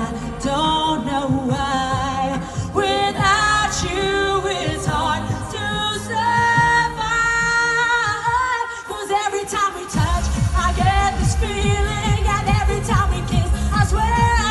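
Live Eurodance-style dance-pop music with a sung vocal line over synths. About two-thirds of the way through, the bass and drums drop out briefly, then a heavy, steady kick-drum beat comes back in under the singing.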